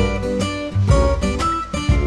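Background music led by acoustic guitar, with a strong bass line and a steady beat.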